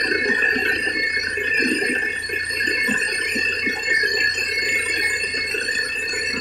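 Borewell drilling rig running steadily while drilling through rock, blowing dust out of the bore. A steady high whine sits over a rough low rumble.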